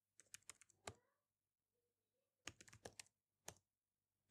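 Faint laptop keyboard keystrokes: a few scattered key presses in the first second, then a quick run of keys about halfway through and one more a little later, as passwords are typed in at a terminal prompt.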